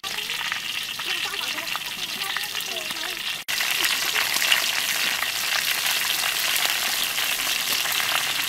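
Breaded onion rings deep-frying in a large wok of hot oil: a steady, dense sizzle and crackle of bubbling oil. The sound cuts out for an instant about three and a half seconds in, then the sizzle carries on.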